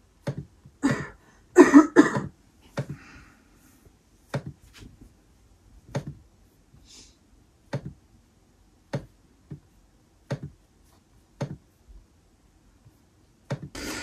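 About a dozen short, sharp taps at uneven intervals, roughly one a second, with a longer, louder noise about two seconds in.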